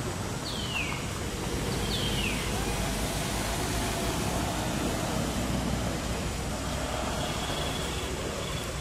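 Steady low outdoor background rumble, with two short whistled bird calls sliding steeply downward about half a second and two seconds in.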